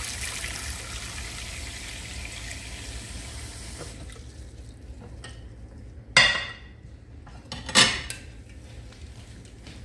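Cold tap water running into a stainless steel pot of just-boiled eggs to cool them, cutting off about four seconds in. Then two sharp clanks of the metal pot and its strainer lid, a second and a half apart.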